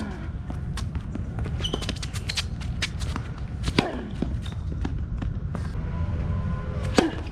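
Tennis rally on a hard court: tennis balls struck by rackets and bouncing, with quick players' footsteps. The two loudest hits come about four and seven seconds in, each with a short falling vocal sound, over a steady low rumble.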